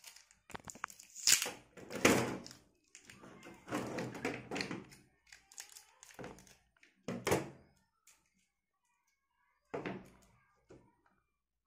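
A roll of tape being handled at a table: tape pulled off the roll in noisy strips and cut with scissors, with several sharp knocks of the roll and tools against the tabletop.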